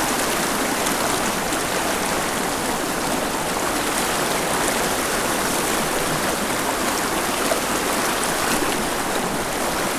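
Small mountain creek rushing over rapids: a steady, even rush of water.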